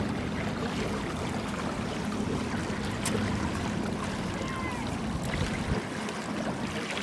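Steady outdoor noise from wind rumbling on the microphone. The low rumble drops away about six seconds in.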